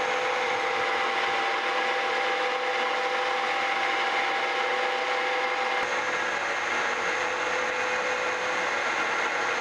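Milling machine end mill taking a slow, light finishing pass along the edge of a metal plate, shaving it to a clean surface. A steady cutting noise with the spindle's even whine, whose tones shift slightly about six seconds in.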